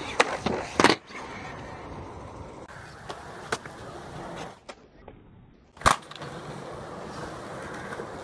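Skateboard on concrete: wheels rolling, with sharp clacks of the tail popping and the board landing, several in the first second and a couple about three seconds in. The loudest single slap of the board comes near the middle, after a brief quiet spell.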